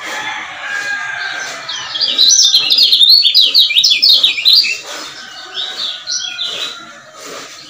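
Male lemon-bellied white-eye (kecial kuning) singing a fast, chattering run of high chirps for about three seconds, with a shorter burst near the end.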